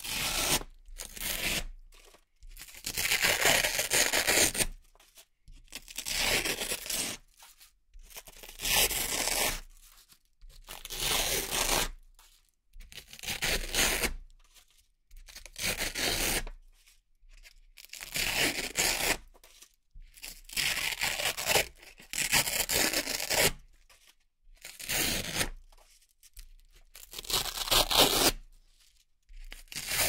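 Velcro hook-and-loop circles being peeled off a Velcro board one after another, each peel a crisp rasping tear. About a dozen peels, each a second or two long, with short quiet pauses between them.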